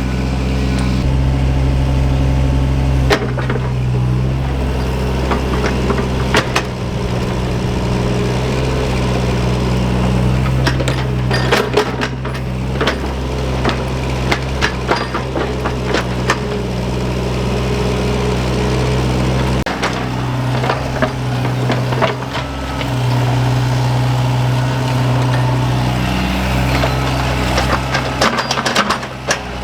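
Diesel engine of small earth-moving plant running steadily, its note shifting a few times as the load changes, with repeated knocks and cracks of digging and breaking wood or roots, thickest around the middle and near the end.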